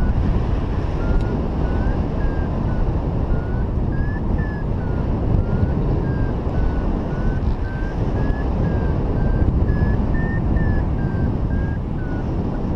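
Wind rushing over the microphone in flight, with a paragliding variometer beeping about twice a second, its pitch stepping up and down as the climb rate changes in lift.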